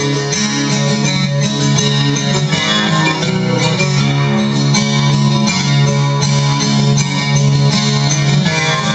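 Guitar music: a guitar being picked in a steady run of plucked notes over regular low bass notes.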